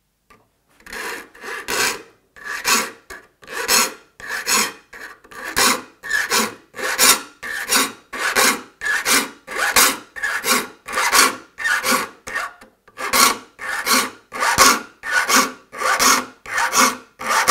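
Steel saw file rasping across the teeth of a handsaw, sharpening them. The strokes are even and regular, a little over one a second, and start about a second in.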